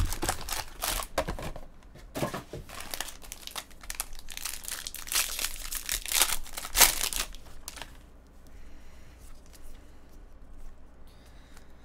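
Foil wrapper of a jumbo pack of Bowman Draft baseball cards crinkling and tearing as it is opened by hand. The crinkling stops about eight seconds in, leaving a quieter rustle as the cards are handled.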